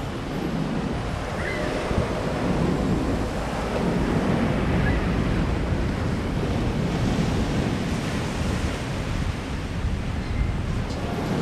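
Lake waves washing and breaking on the shore in a steady, swelling rush, with wind rumbling on the microphone.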